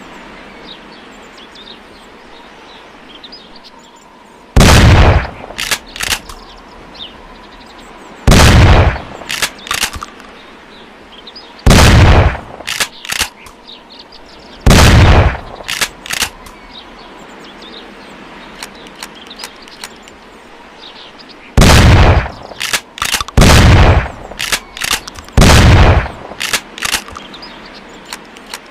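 Winchester pump-action shotgun firing seven loud shots, each followed about a second later by the short clicks of the pump being racked back and forward to chamber the next shell. The shots come three to four seconds apart, with a longer pause of about seven seconds before the last three.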